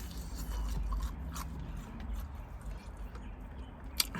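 A person chewing and eating food close to the microphone, with small scattered mouth and food noises and a single sharp click near the end.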